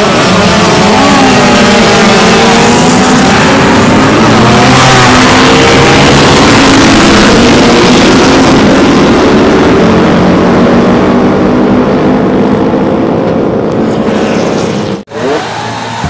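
A pack of classic racing motorcycles, two-strokes among them, pulls away from the starting grid at full throttle. Many engines rev at once, rising in pitch, then fade as they draw away down the straight. After a sudden cut near the end, a quieter engine is heard running.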